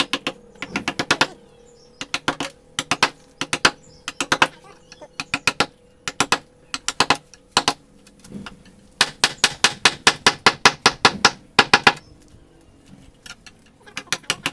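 Wooden mallet tapping a carving chisel into wood in quick runs of sharp knocks, several a second, with short pauses between runs and the longest run in the second half.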